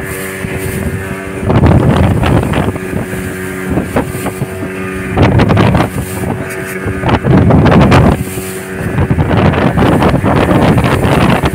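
Motorboat engine running steadily at speed, with strong wind buffeting the microphone in surges, loudest about one and a half, five and eight seconds in.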